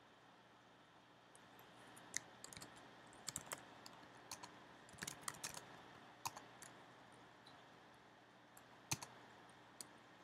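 Faint computer keyboard keystrokes: irregular single clicks and a few short runs of taps.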